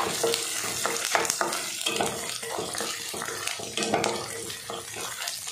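Crushed garlic, lentils and dried chillies sizzling as they fry in sesame oil in a kadai, while a wooden spatula stirs them, scraping and knocking against the pan many times.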